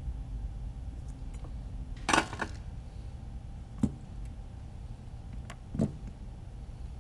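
Drone frame being handled and turned over on a silicone work mat, with a low steady hum behind. There is a short clattering rattle about two seconds in, a sharp click near four seconds, and a knock near six.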